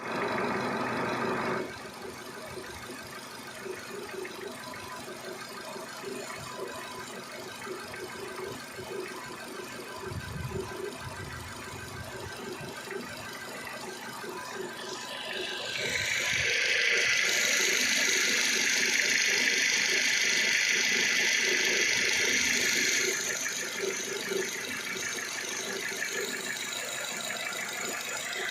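Renault Duster 2.0-litre engine idling with a fast, even tapping knock from the engine bay, an unexplained noise the owner is asking about. A loud hiss rises over it for about seven seconds midway.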